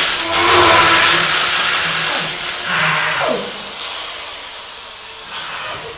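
Electric power drill in a binaural 3D audio drama, running loudly with a steady motor whine, then winding down with a falling pitch a little after three seconds in as the sound fades.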